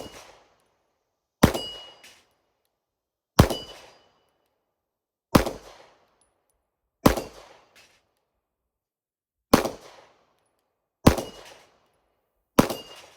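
Walther PDP F Series 9mm pistol firing eight slow, aimed single shots, one every one and a half to two and a half seconds, each a sharp crack with a short echo; a faint metallic ring follows some of them.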